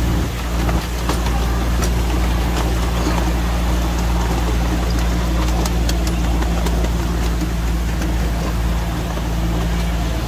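Engine of a 7¼-inch gauge diesel-outline miniature locomotive running steadily as it hauls the ride-on passenger train, with scattered light clicks over it.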